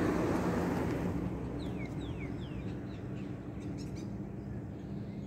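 Distant engine noise fading away, with three quick falling bird chirps about two seconds in.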